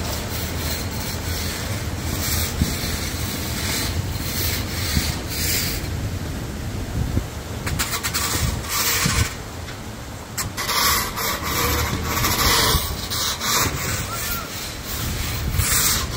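Street traffic and engine noise: a steady low engine hum, with several swells of vehicles passing.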